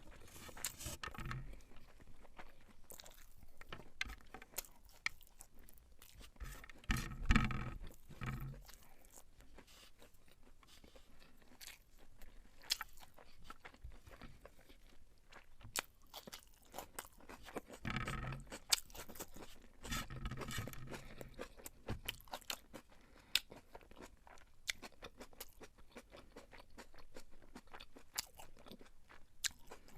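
Close-miked chewing and mouth sounds of a person eating beef pilau (spiced rice with beef), with frequent short clicks and louder stretches of chewing about a quarter of the way in and again around two-thirds of the way through.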